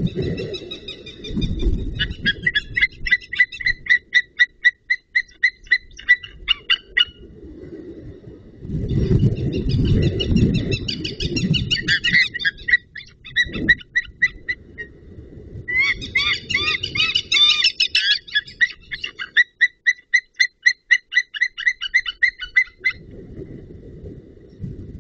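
White-tailed eagles calling: three long series of rapid, evenly repeated call notes, with two birds overlapping in the last series, under a low rumbling noise.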